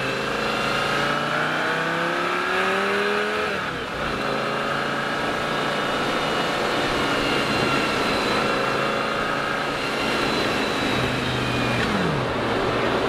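2006 Lamborghini Gallardo Spyder's V10 engine heard from the open cockpit, rising in pitch under acceleration for about three and a half seconds, then dropping sharply at an upshift and pulling on more steadily. Near the end its pitch falls as the car slows.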